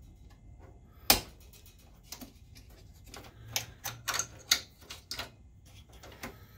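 Sharp clicks and taps of a small screwdriver working plastic wire connectors loose inside a projector's chassis as its thermal cutout wiring is unhooked: one loud click about a second in, then a quick run of clicks a couple of seconds later.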